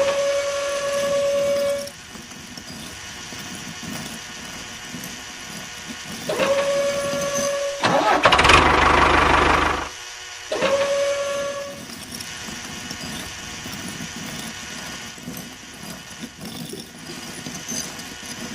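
A small motor whining at a steady pitch, switched on for about a second and a half at a time, three times. A louder, rougher grinding-like noise runs for about two seconds in between.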